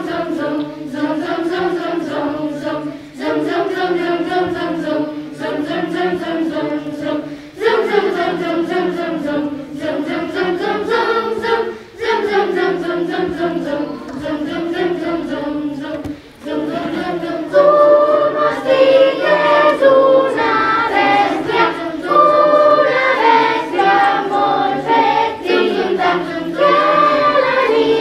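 Children's choir singing a song in phrases with short breaks for breath. About two-thirds of the way through, a higher vocal line joins in and the singing grows louder.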